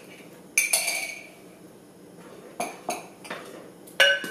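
Stainless steel ladle clinking against the side of a glass cooking pot while stirring thick soup: several separate clinks, the loudest near the end with a brief ringing tone.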